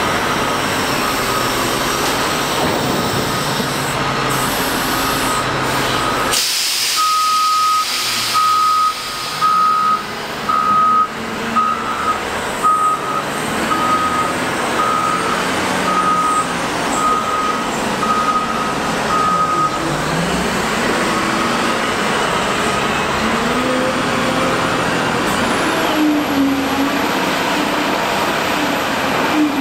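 Cat 972M wheel loader's diesel engine running, with its reversing alarm beeping steadily at a little over one beep a second until about two-thirds of the way through. In the last third the engine revs up and down as the loader works.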